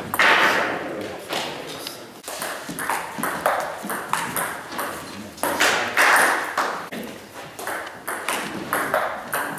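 Table tennis ball being hit back and forth in a rally, a quick irregular run of sharp ticks off the rubber bats and the table.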